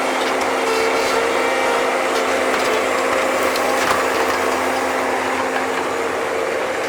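Bobcat skid-steer loader running steadily with a constant hum, mixed with scattered clanks and scrapes as it digs.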